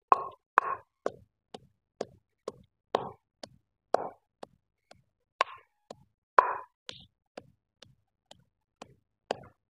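Wooden pestle pounding green chillies, mint and garlic in a stone mortar: a steady rhythm of strikes, about two a second, each with a short crushing sound after it.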